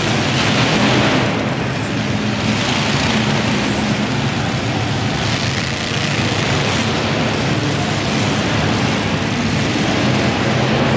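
Several monster truck engines running loudly and steadily together, with a deep, rough rumble.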